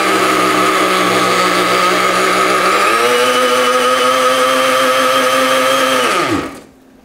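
Countertop blender running steadily as it purees hot barbecue sauce made with dried chili peppers. About three seconds in its pitch steps up, and near the end it is switched off and winds down with a falling pitch.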